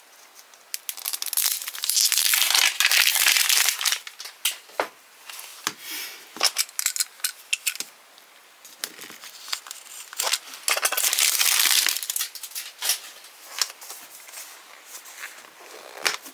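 Plastic packaging being crinkled and torn by hand while a Mini Brands toy capsule is unpacked, in two long loud spells, with scattered clicks and taps of hard plastic between them.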